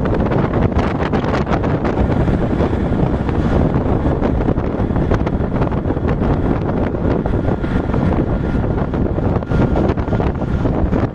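Wind buffeting the microphone of a rider in an open-sided auto-rickshaw on the move, over the rickshaw's engine and road noise. It is a steady, heavy rumble throughout.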